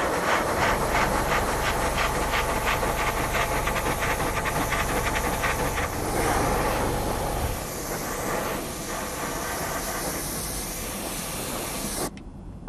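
Airbrush hissing as it sprays paint, with a fast, even pulsing for about the first half, then steadier, and cutting off suddenly when the trigger is released near the end.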